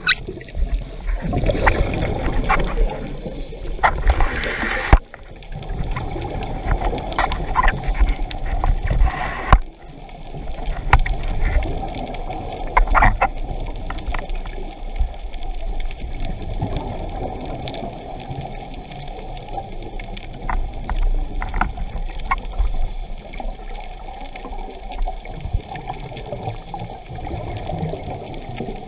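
Underwater sound heard by a camera in its housing: a scuba diver's regulator breathing, with exhaled air bubbles rushing and bubbling past and water moving around the camera. The sound comes in long, loud stretches in the first ten seconds, with brief drops near five and ten seconds in, then goes on steadier and somewhat quieter.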